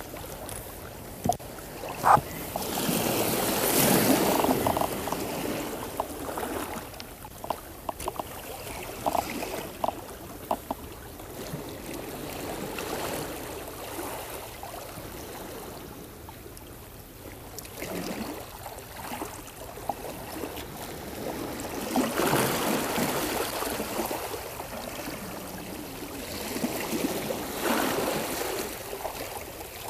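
Seawater sloshing against a stone seawall, swelling and fading in slow surges, with a few small clicks and knocks here and there.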